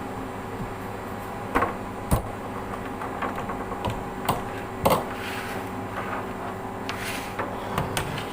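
Scattered knocks and clicks of things being handled and set down, with a brief rubbing noise in the middle, over a steady electrical hum.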